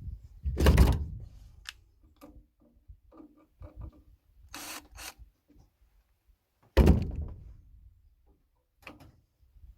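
Knocks and thunks from work on the gutter installation: two loud thunks about six seconds apart, each ringing out briefly, with lighter clicks and knocks between.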